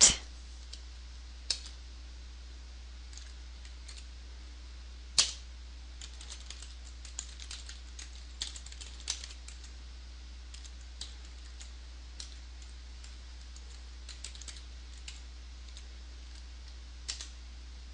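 Computer keyboard being typed on slowly: scattered key clicks with pauses between them, a couple of them louder, over a steady low hum.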